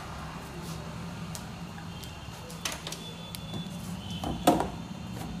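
Handling noise as a multimeter is brought over an open amplifier chassis: a few light clicks and one louder knock about four and a half seconds in, over a steady low background hum.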